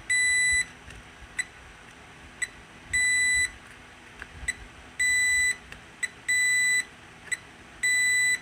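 Digital multimeter's continuity beeper sounding as the probes touch a point on the T-Con board: five high half-second beeps with short chirps between them. The beeps show the point reads as shorted to ground.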